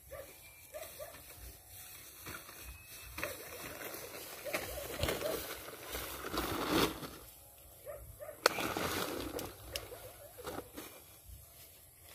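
Sand and cement being poured from woven plastic sacks into a metal basin for mixing concrete: a rushing pour with the sacks rustling. A single sharp knock comes a little after the middle.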